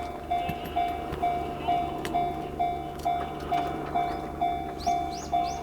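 Japanese railway level crossing alarm ringing its electronic bell tone about twice a second, the signal that a train is approaching. High rising chirps join in near the end.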